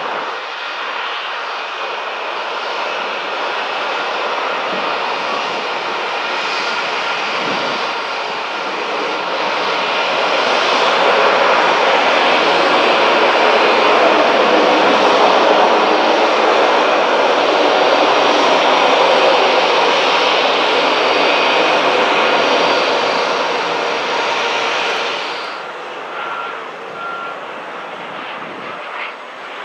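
Jet engines of an Airbus A320 airliner landing and rolling out on the runway. The steady jet noise swells to its loudest about halfway through, then drops off abruptly near the end.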